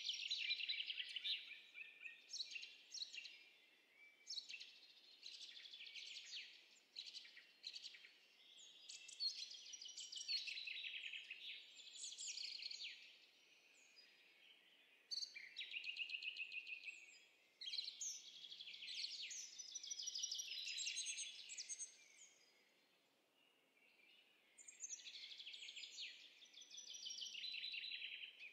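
Songbirds singing: phrases of quick, high chirps and trills, coming in runs of a few seconds with short pauses between them, over a faint background hiss. This is a recorded nature birdsong sound effect laid under the footage.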